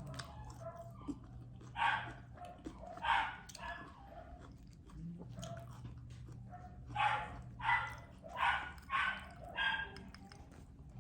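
A dog barking: two short barks a little over a second apart, then after a pause a run of five barks in quick succession.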